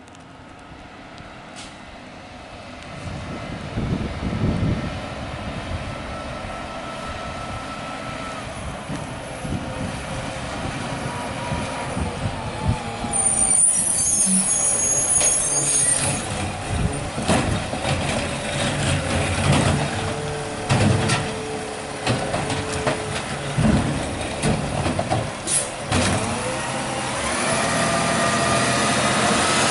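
Peterbilt 520 garbage truck with a McNeilus ZR rear-loader body, its engine growing louder as it drives closer. A sharp air-brake hiss comes about halfway through, followed by knocks and clatter from the truck.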